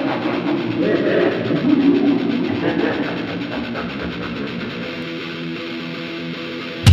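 Background music with guitar, at a steady level; a sudden loud heavier passage hits right at the end.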